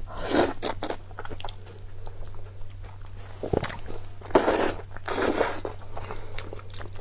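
Close-miked chewing and mouth sounds of a person eating a bite of braised eggplant over rice: wet smacks and small clicks, with louder bursts at the start and about four to five seconds in, over a faint steady low hum.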